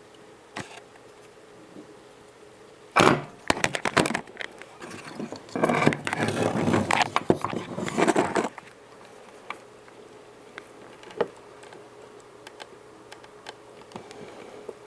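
Handling clatter: about three seconds in, a quick run of sharp knocks, then about three seconds of rattling and rustling, followed by a few faint ticks.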